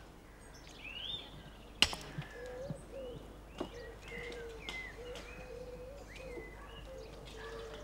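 Birds chirping, with a few sharp knocks of walling stone being struck and set in a dry stone wall; the loudest knock comes just under two seconds in.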